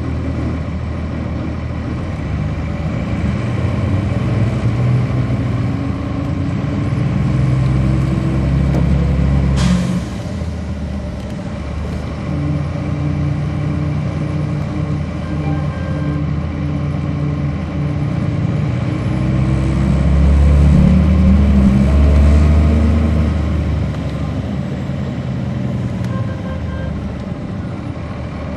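Cummins ISC diesel engine of a 1999 Nova Bus RTS, heard from on board. It rises in pitch twice as the bus pulls away and speeds up, and eases off in between. About ten seconds in, a sudden short noise comes just as the engine note drops.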